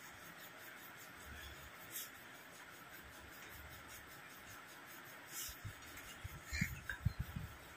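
Quiet sounds of eating by hand at a table: fingers mixing rice on plates, with faint clicks over a steady low hiss. A quick run of soft dull thumps comes near the end.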